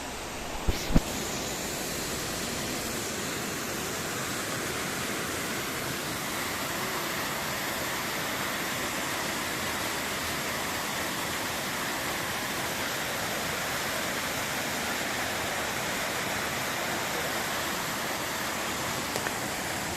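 Waterfall: a steady, even rush of falling water. A couple of short sharp knocks sound about a second in.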